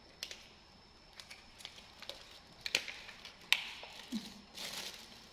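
Light scattered clicks, taps and soft plastic rustling from hands handling a paper-and-plastic medicine sachet over a plastic bag, with two sharper clicks midway and a brief low hum-like sound about four seconds in.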